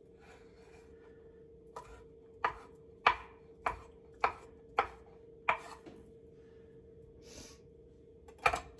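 Kitchen knife chopping chicken sausage on a cutting board: about seven sharp strikes roughly half a second apart, over a faint steady hum. A single louder knock comes near the end.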